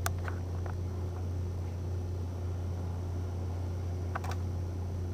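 Room tone: a steady low hum under faint hiss, with a short click near the start and another couple of clicks about four seconds in.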